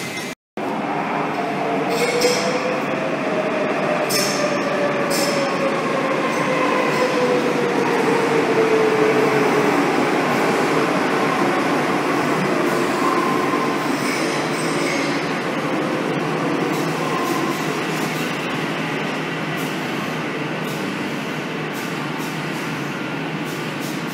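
Madrid Metro 5000-series electric train pulling out of a station, with a steady rumble of wheels on rail. The traction motors give a whine that rises for a few seconds and then slides lower as the train gathers speed, with occasional clicks and squeal from the wheels. The sound drops out for a moment just after the start.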